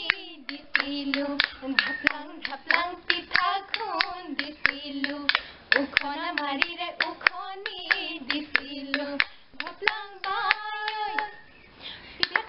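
Two women singing a Bihu naam, an Assamese folk song, to a fast steady beat of hand claps and the clacking of a split-bamboo toka clapper. The singing and beat pause briefly near the end.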